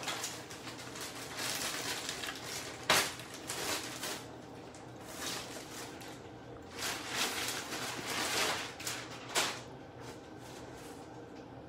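Plastic bags and wrapping rustling and crinkling as they are handled, in irregular bursts with a few sharp crackles.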